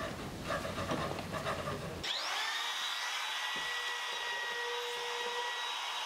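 Irregular tapping and scraping on timber, then about two seconds in an electric router starts with a rising whine and runs steadily, with a high whine over the hum of a dust extractor.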